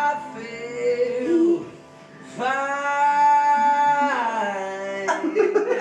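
A song with a singing voice over instruments, ending on a long held note that falls away. Clapping starts near the end.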